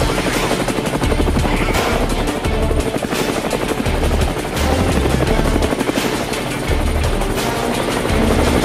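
Helicopter rotors beating steadily, mixed with background music that has a heavy, pulsing low beat.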